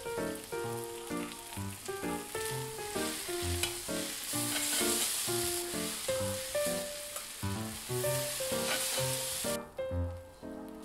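Yakisoba noodles and vegetables sizzling as they fry on a hot iron teppan griddle, the sizzle swelling mid-way and cutting off suddenly about a second before the end. A light background tune of short, bouncy notes plays throughout.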